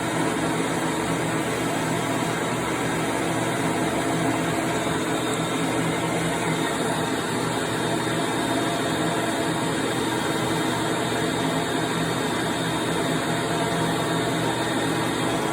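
Bandsaw running steadily, a constant motor hum with a whirring noise that does not change.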